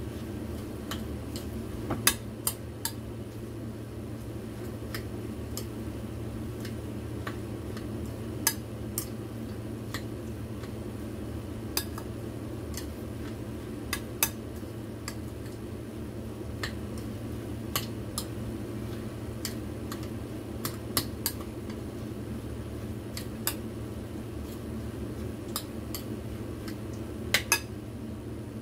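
Chopsticks stirring in a ceramic mixing bowl, with sharp clicks against the bowl every second or two and a few louder knocks, including a quick pair near the end.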